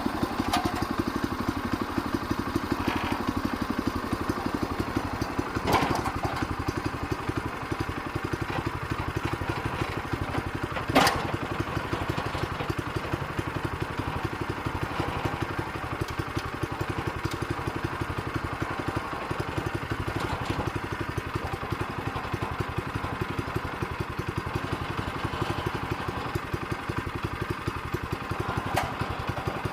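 Small gas engine of a portable bandsaw mill running steadily. Two sharp knocks stand out, about six seconds in and about eleven seconds in, the second louder.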